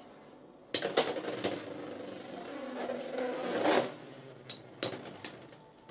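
Beyblade X tops spinning and scraping against each other in a plastic stadium, starting with a sharp click about a second in; the whirring stops abruptly near four seconds, followed by a couple of sharp clicks.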